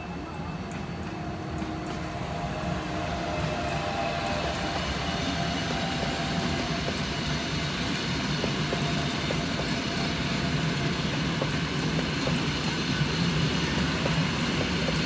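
Flåm Railway passenger train, an electric locomotive hauling a string of carriages, rolling past on the track: a steady rumble of wheels on the rails that grows louder over the first few seconds as it comes alongside, then holds.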